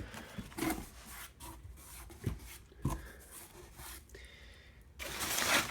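Cardboard shipping box being opened by hand: flaps rubbing and scraping, with two light knocks in the middle and a longer, louder scrape near the end.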